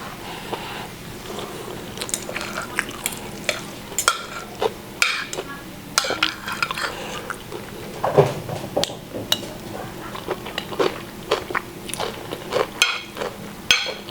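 Cutlery clinking and scraping against a plate in irregular short clicks while a meal is being eaten.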